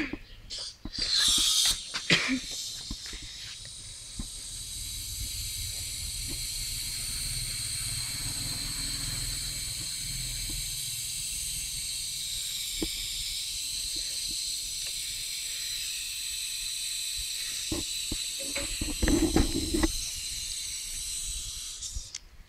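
Hydrogen gas hissing steadily out of a homemade caustic-soda-and-aluminium generator's cylinder valve into a balloon as it inflates, with a short louder rush about a second in. Some handling noises near the end.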